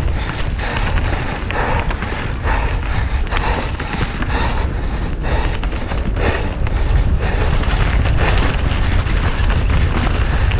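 Wind buffeting the microphone with a heavy low rumble, over the rattle and frequent knocks of a mountain bike descending rough trail at speed.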